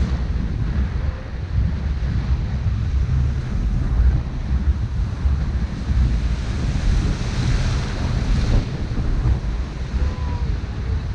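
Wind buffeting the microphone, with sea waves washing and breaking on the rocks. A wave breaks into a louder splash about six seconds in and cuts off suddenly a couple of seconds later.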